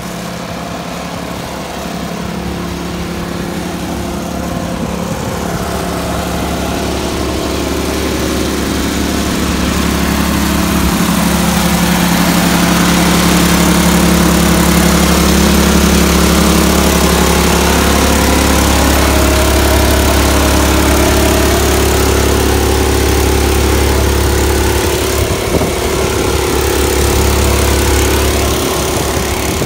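Air compressor running steadily, a low drone that grows louder over the first half and then holds.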